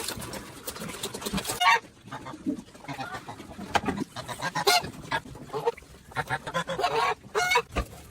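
Geese honking: a string of short, separate honks at irregular intervals, some louder than others.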